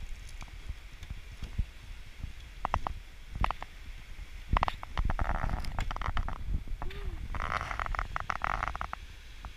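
Footsteps and knocks on a bamboo footbridge, with two stretches of creaking about five and seven and a half seconds in, over a steady low rumble of wind on the microphone.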